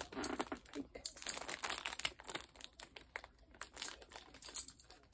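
Plastic packaging of braiding-hair packs crinkling and crackling in irregular bursts as it is handled.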